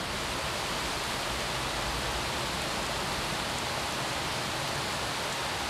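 Steady, even hiss with nothing else heard: the recording's background noise.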